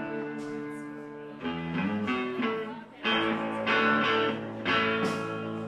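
Electric guitar strumming chords and letting each ring out. A chord fades over the first second and a half, then new strums come about 1.5 s, 3 s and 4.7 s in.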